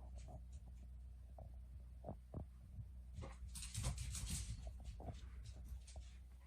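Quiet room tone with a steady low hum, a few faint clicks and a brief rustle about halfway through.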